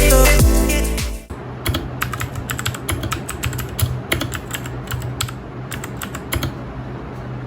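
Typing on a Royal Kludge RK61 mechanical keyboard with clicky Cherry Blue switches: a quick, uneven run of sharp key clicks. Background music stops about a second in, just before the clicks begin.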